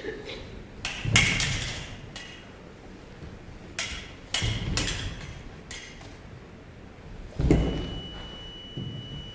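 Foil bout: the blades clash and ring in quick exchanges, and the fencers' feet stamp on the stage. About seven and a half seconds in, a thump comes with the final lunge. The electric scoring machine then sounds a steady beep for about two seconds, signalling a touch.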